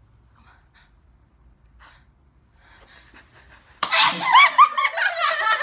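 Quiet for nearly four seconds, then a person sneezes suddenly and loudly, followed at once by a burst of high-pitched laughter.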